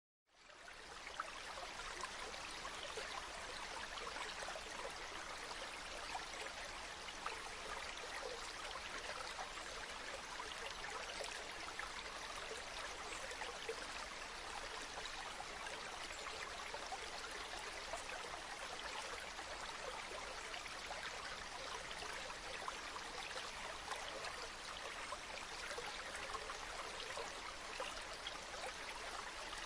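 Water flowing in a small stream: a steady babbling rush flecked with many small splashes and trickles. It fades in quickly at the very start.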